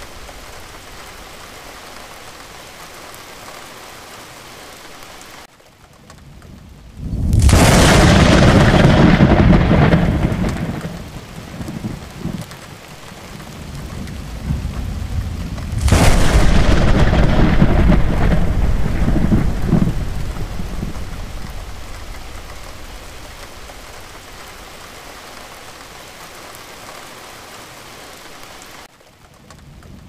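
Steady rain falling, broken twice by thunderclaps close by. Each starts with a sudden sharp crack and rolls on as a low rumble that fades away over several seconds.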